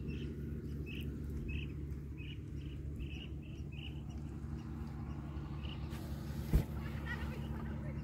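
A small bird chirping in a string of short notes, two or three a second, for about six seconds, over a steady low drone. A single sharp knock comes near the end.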